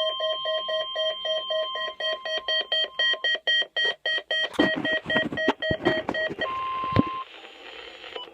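Electronic alert beeping from a NOAA weather radio broadcast, a rapid pulsing tone at about four beeps a second. From about four and a half seconds in, raspy, crackly bursts join the beeps, and a short steady tone sounds near the end.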